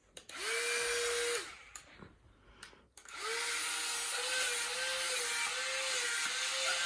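The suction fan motor of a toy wall-climbing RC stunt car, whirring with a steady whine and an airy hiss. It runs for about a second and cuts off, then, after a few clicks, starts again about three seconds in and runs on with a slight wavering in pitch.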